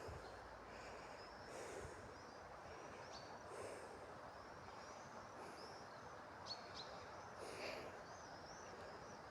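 Faint outdoor birdsong: many short, high chirps from small birds over a low steady background hiss, with a few soft whooshes.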